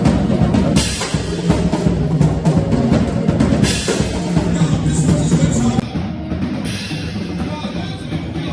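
Drum-heavy music: a drum kit playing dense, fast bass-drum and snare hits. It gets a little quieter about six seconds in.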